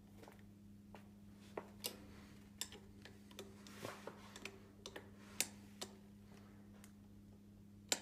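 Light metallic clicks and taps of an Allen key and 5 mm Allen screws as a Shimano disc-brake caliper is bolted onto the unicycle frame's brake mount. The clicks are scattered and irregular, thickest in the middle, over a faint steady hum.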